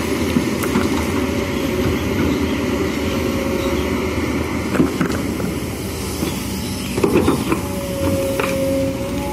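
Kobelco SK210HD hydraulic excavator working a gravel pile: its diesel engine runs steadily under load. Several sharp knocks of stones sound as the bucket digs, and a steady whine comes in near the end.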